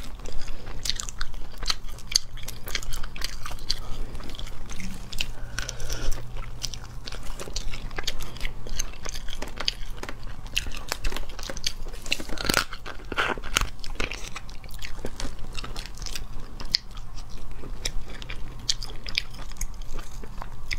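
Close-up crackling and crunching of crustacean shells being pulled apart by hand and bitten, with chewing in between; one louder crack a little past halfway.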